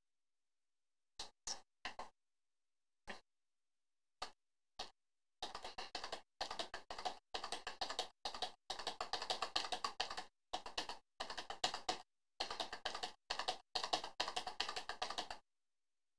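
Computer keyboard keys being pressed: a few separate keystrokes, then, about five seconds in, quick runs of typing with short pauses, clicking rapidly for about ten seconds before stopping.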